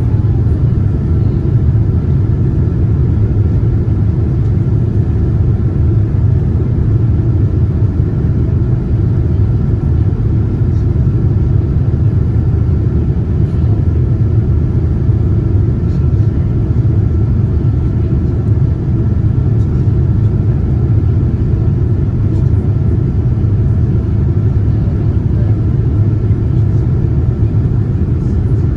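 Steady cabin noise of a Boeing 787-9 with GEnx engines, heard from inside the cabin: a deep, even rumble of engines and airflow with a faint steady whine over it.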